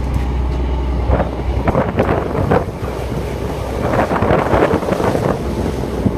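Wind buffeting the microphone outdoors. A heavy low rumble in the first second and a half gives way to uneven gusting surges.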